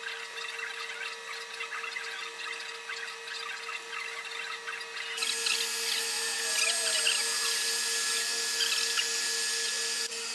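A Bukito 3D printer running, with small ticks and whirs from its motors, then about five seconds in a heat gun blowing, a louder steady rushing hiss with a thin whine, as it heats a length of plastic filament.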